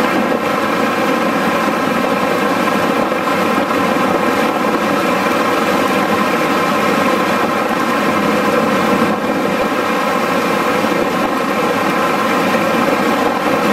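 Steady drone of a vehicle on the move, engine and road noise with an even hum that holds its pitch throughout.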